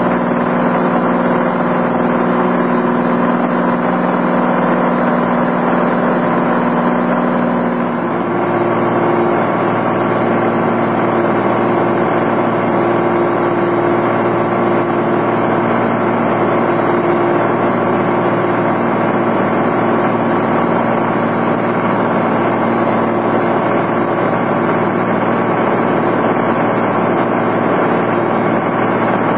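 Cessna 182 amphibian's single piston engine and propeller running steadily in flight. The drone's pitch pattern changes abruptly about eight seconds in and then holds steady.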